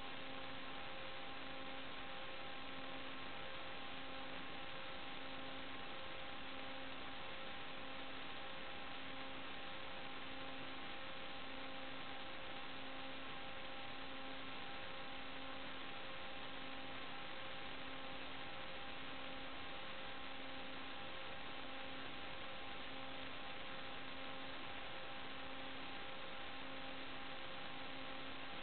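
Electronic noise from an analog FPV video link's audio channel: a steady hiss with several constant hum tones and a lower tone pulsing about once a second. No propeller or voice sound comes through.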